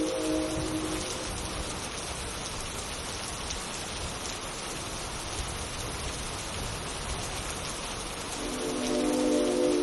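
Steady rain-like hiss between two synthesized train horn blasts. The first horn, a chord of several steady tones, cuts off about a second in. The next multi-tone horn chord comes in near the end.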